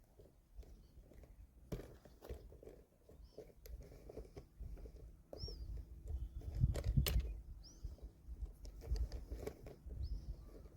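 Footsteps crunching over dry ground, irregular and uneven, with a few short high bird chirps scattered through.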